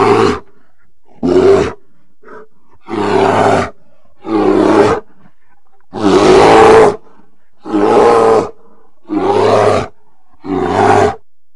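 A bear roaring: a series of eight short roars, each under a second long and about a second and a half apart, over a steady hiss. The longest and loudest roar comes about six seconds in.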